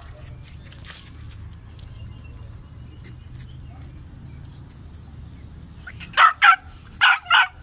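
Alabai (Central Asian Shepherd) puppy barking: four short, high barks in quick succession starting about six seconds in, after a stretch with only faint background noise.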